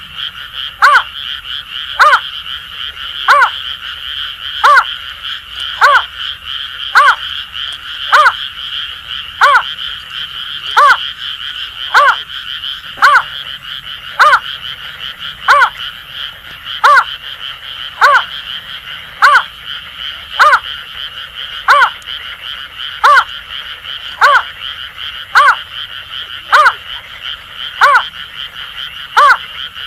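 A greater painted-snipe repeats a hooting call note evenly, a little under once a second. Behind it runs a steady chorus of Asian grass frogs calling.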